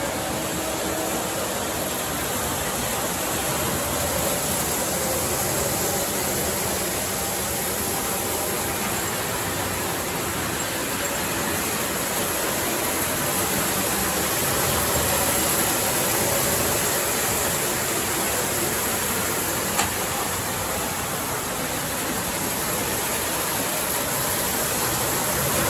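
LGB F7 G-scale model diesel locomotives running on the layout track: a steady rolling hiss and rumble, with a single click about twenty seconds in.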